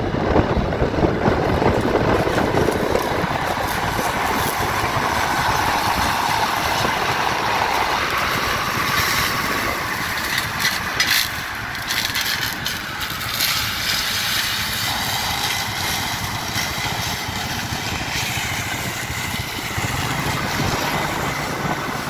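Farm tractor's diesel engine pulling a stalk shredder through standing cornstalks, with the shredder's rotor running behind it: a steady working rumble.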